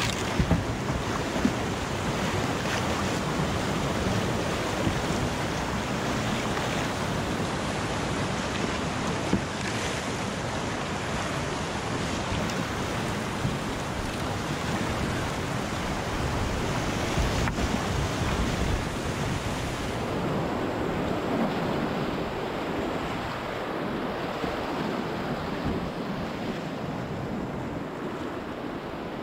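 Whitewater creek rapids rushing over rocks close around a kayak, a steady, dense rush of water, a little softer over the last several seconds.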